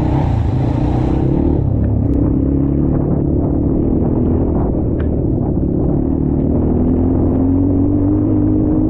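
Dirt bike engine running on the move under a heavy low rumble, its pitch holding fairly steady and then rising slowly over the last few seconds.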